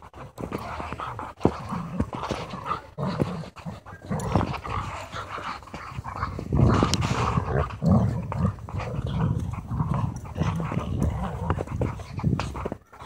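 Dogs at rough play, an Alaskan malamute and a smaller tan dog, growling and panting while tugging on a rope leash. The sounds come in irregular bursts.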